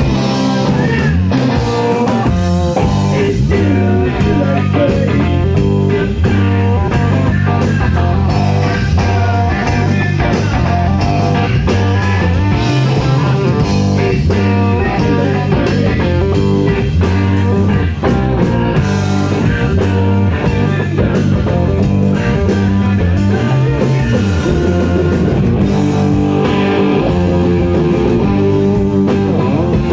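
Live rock band playing, with guitar to the fore.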